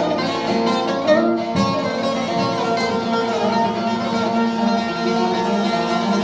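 Music played on a plucked string instrument, a continuous run of notes.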